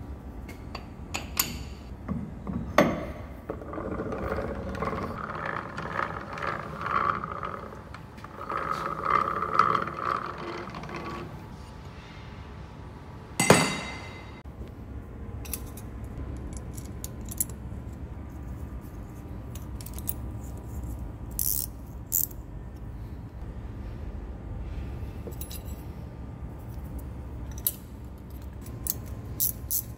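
Steel jaws and brass pads being handled and fitted on a large three-jaw lathe chuck. Metal scrapes and rattles through the first ten seconds or so, there is one loud metallic clang about halfway, and then light metallic clinks and ticks follow.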